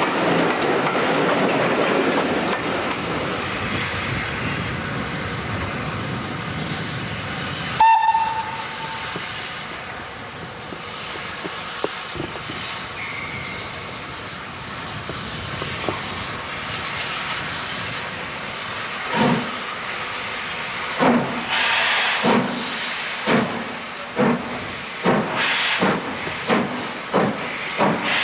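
Carriages of a steam-hauled train rolling past, then a short whistle and steam hiss as a steam locomotive starts its train away. Its exhaust beats come in about two-thirds of the way in and quicken steadily as it gets going.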